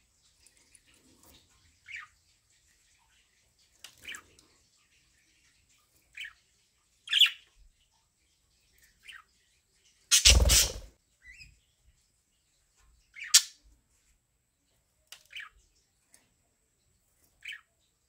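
Budgerigars giving short, scattered chirps and squawks, one every second or two. About halfway through comes one louder, harsher burst of about half a second.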